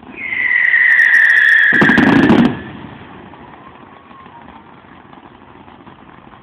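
Firework whistling loudly for about two seconds, its pitch falling slightly, joined near the end by a crackling rush that cuts off suddenly about two and a half seconds in.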